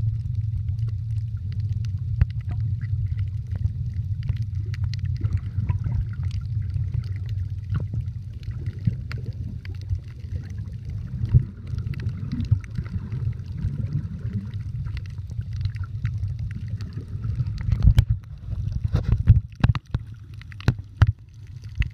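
Muffled underwater sound from a submerged camera: a steady low rumble of water moving past it, with scattered sharp clicks and a few louder knocks near the end.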